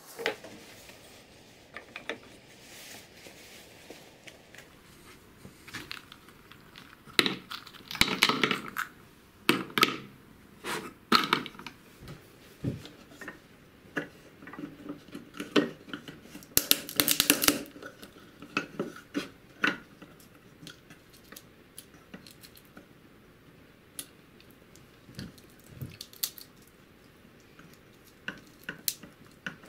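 Walnuts being cracked in a homemade wooden lever nutcracker: sharp cracks of shell, then shell pieces clicking and rattling against the wooden box as the kernels are picked out. The loudest cracking comes in a few clusters, about a quarter, a third and halfway through.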